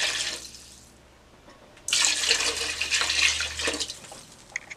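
Sizzling in a hot pot of meats dies away within the first half second. About two seconds in, water is poured into the pot with a splashing rush that lasts until near the end.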